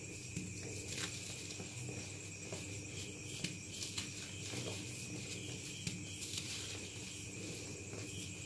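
Dyed gym chalk block crumbled and crushed by hand: scattered small crunches and crackles as pieces break off and fall onto loose powder. The block was dyed but not completely dried.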